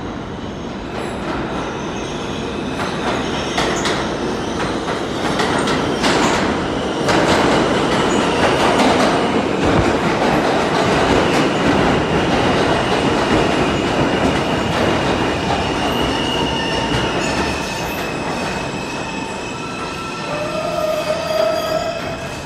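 An R160 New York City subway train with Siemens propulsion arrives at an underground platform. The rumble and clatter of its wheels over the rails grows louder over the first several seconds. As it slows, steady high-pitched squeals set in, and a lower tone sounds near the end as it comes to a stop.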